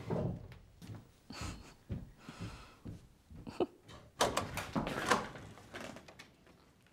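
Quiet rustling and scattered light knocks in a large room, then a pair of tall wooden double doors is swung open about four seconds in.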